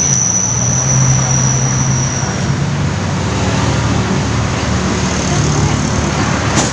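Road traffic passing close by: motor vehicle engines and tyre noise running steadily, with a thin high whine that fades out about two and a half seconds in.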